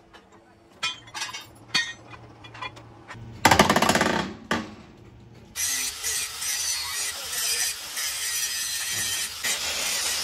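Angle grinder cutting through a steel excavator track link, running steadily from about five and a half seconds in. Before it come a few light metal clinks and, about three and a half seconds in, one loud burst lasting about a second.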